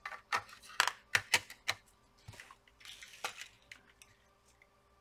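Sharp small clicks and taps of a laptop motherboard and its parts being handled and seated into the plastic palmrest chassis. There are about six in the first two seconds, then a few softer ones.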